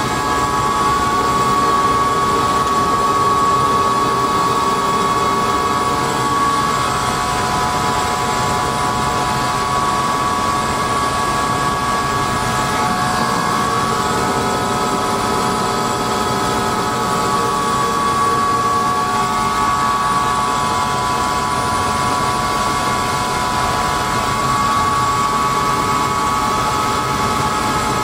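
Helicopter's turbine engine and rotor running steadily, with a constant high whine over the rotor noise.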